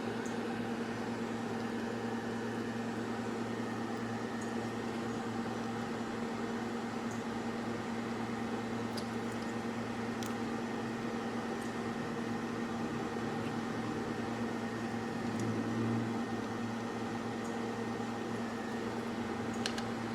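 Steady electrical hum with a fan-like hiss from running workbench equipment, with a few faint ticks.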